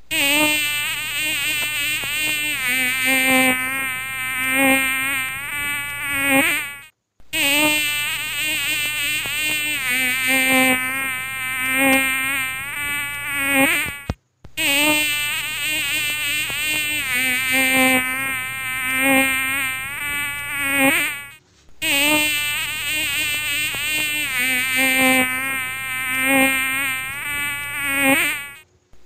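Mosquito whine buzzing close by, wavering in pitch. It is a stretch of about seven seconds heard four times over, with short gaps in between, like a looped sound effect.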